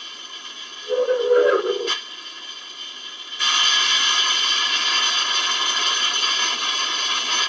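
KITT-style scanner sound effect from a replica's sound unit: one short pitched swoosh about a second in, followed by a click. From about three and a half seconds in a louder, steady electronic hiss carrying several steady tones takes over.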